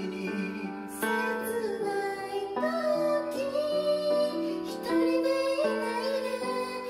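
A gentle piano backing track with a woman singing over it, holding two long, wavering notes.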